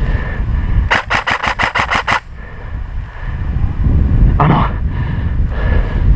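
An airsoft electric gun (AEG) firing one fast full-auto burst of about eight shots in just over a second, about a second in. Low rumble and movement noise run underneath, with a short rustle later on.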